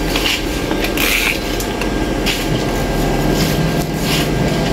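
A steady low mechanical drone, with a few short hissing scrapes over it.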